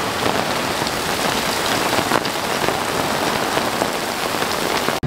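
Heavy downpour: a steady, dense hiss of pouring rain hitting the ground, trucks and awning, with a few sharper single drop impacts standing out.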